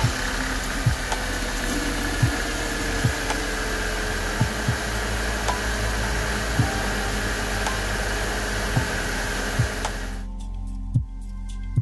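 Car engine running while automatic transmission fluid is pumped out of the disconnected cooler line into a container, a steady rushing hiss with soft low thumps about once a second. The hiss cuts off abruptly about ten seconds in, as the engine is shut off.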